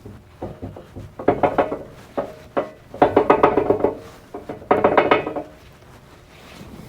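Steel parts clanking and ringing in several short bursts, metal knocking and scraping against metal.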